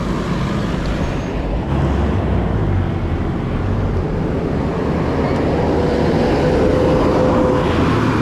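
Highway traffic going by: a steady rumble of road noise, with one vehicle's engine hum growing louder in the second half.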